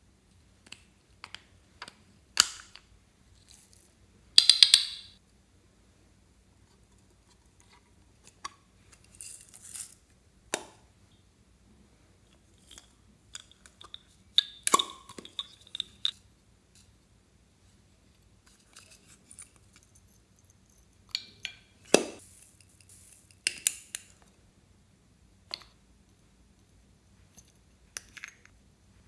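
Small plastic pots of slime add-ins being handled: lids clicking open, containers tapping against a glass bowl, and beads and sprinkles rattling as they are tipped out. It comes as a string of separate clicks, taps and short rattles with quiet gaps between them.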